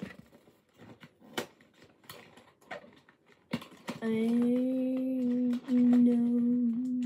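Cardboard snack box and packaging handled and opened, with scattered light clicks and rustles. Then, from about four seconds in, a girl hums a long level closed-mouth 'mmm', broken once briefly partway through.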